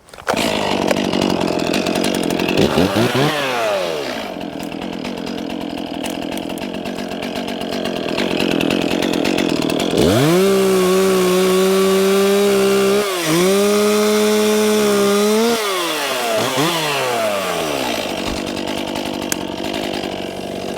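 Chainsaw running, blipped at first, then held at full throttle for about five seconds with one brief dip, and let back down toward idle.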